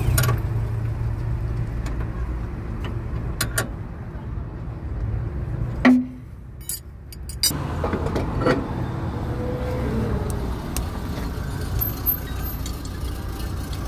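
Steady low mechanical rumble, as of a running vehicle, with scattered sharp metallic clicks and clinks of tools on car parts. A loud knock comes about six seconds in, and the rumble drops away briefly before returning.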